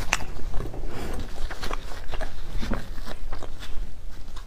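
Close-miked eating noises: a string of short wet clicks and rustles from lips and a tissue wiping the mouth, then a plastic-gloved hand pulling apart a sticky chocolate-coated bread roll. A low steady hum runs underneath.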